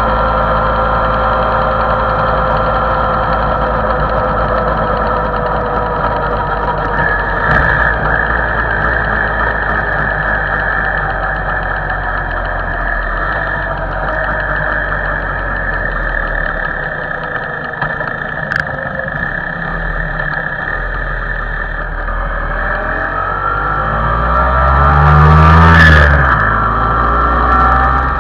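MZ motorcycle engine running at road speed under way, with wind rush. The engine note eases lower through the middle, and near the end the sound swells louder with a rise and fall, then drops back.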